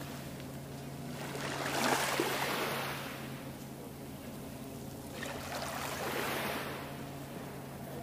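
Small sea waves washing in on a stony beach: two swells of surf noise about four seconds apart, each rising and dying away, over a steady low hum.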